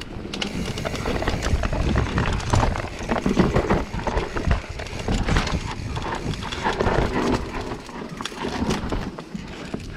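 Mountain bike rolling fast down a rocky dirt trail: tyres crunching over dirt and stones and the bike rattling and clattering with irregular knocks as it hits rocks, over a steady low rumble.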